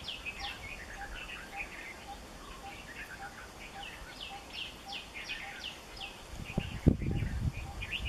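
Many small birds chirping in quick, falling notes, over a steady ticking call repeated about twice a second. About seven seconds in comes a single sharp knock with low rumbling around it.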